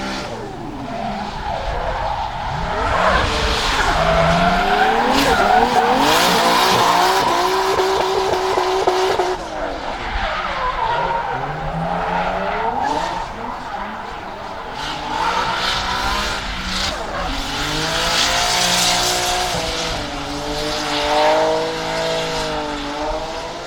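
Nissan Silvia S14's swapped RB26DET 2.6-litre twin-turbo straight-six revving hard and dropping back again and again through a drift, with the tyres squealing and skidding. The tyre noise swells twice, early and again near the end.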